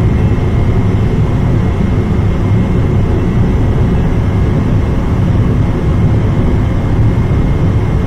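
Two North American Tempest gas burners on an industrial furnace firing at full output, with their combustion air: a loud, steady, low rushing noise with a faint steady high tone over it.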